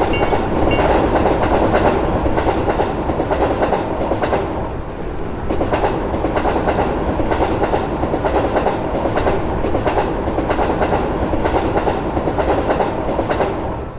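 Electric train passing, wheels clattering over the rail joints with a steady heavy rumble; a faint level-crossing bell ringing in the first second. The train sound eases briefly about five seconds in and cuts off suddenly at the end.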